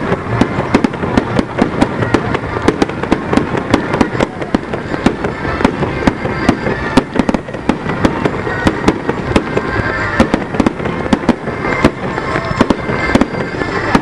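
Fireworks display: aerial shells bursting in quick succession, a dense run of sharp bangs and crackles several times a second.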